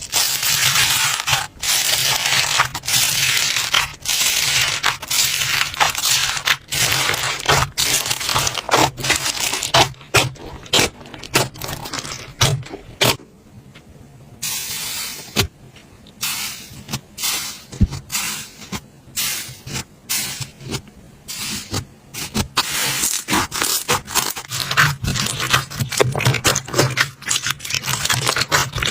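Slime being pressed, stretched and scraped by hand, making dense crackling and scraping sounds full of small pops, which thin out to scattered clicks for a few seconds about halfway through.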